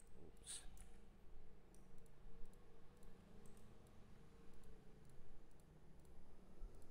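Faint computer mouse clicks and keyboard key taps, scattered and irregular, one a little louder about half a second in, over a low steady hum.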